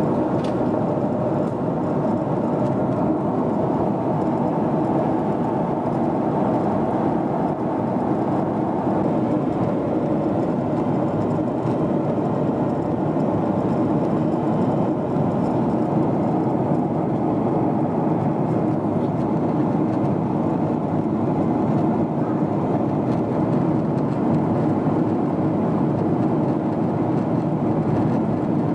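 Steady cabin noise inside a Boeing 777-300ER in descent: the even, low rush of air streaming past the fuselage mixed with the hum of its GE90 engines, heard from a window seat.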